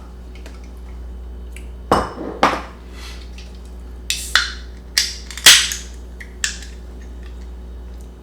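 A utensil clinking and scraping against a bowl, about half a dozen short sharp strikes, most of them between about 4 and 6.5 seconds in, over a steady low hum.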